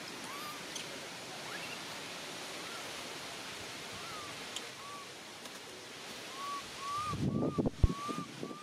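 Steady outdoor hiss with a short chirping call repeated about once a second, coming faster near the end. Rustling starts about seven seconds in, with one sharp knock just before the end.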